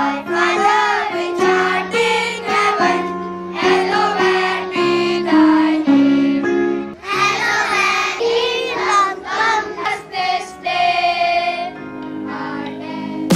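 A group of schoolchildren singing a prayer together in unison, with long held notes.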